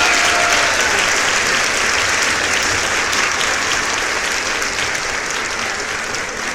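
Sea surf washing and hissing on the shore, fading slowly, with the tail end of a seagull call in the first second.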